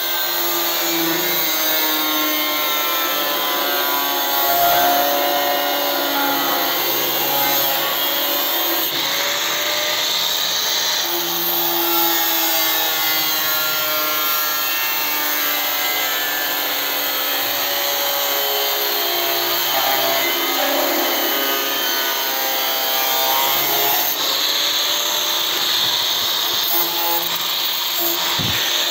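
Angle grinder with a thin abrasive cutting disc running and cutting through steel sheet. Its whine keeps rising and falling in pitch over a steady gritty noise.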